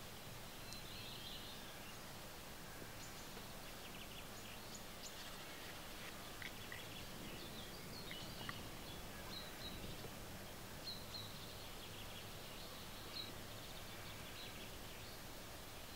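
Faint woodland birdsong: scattered short, high chirps and twitters of small birds over a steady background hiss and a low hum.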